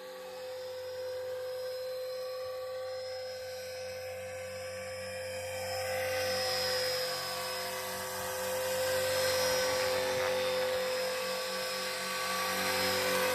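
Radio-controlled scale Bell 206 JetRanger helicopter in flight: its motor and main rotor give a steady whine with a fast rotor beat, swelling louder twice in the middle. Gusty wind hisses across the microphone.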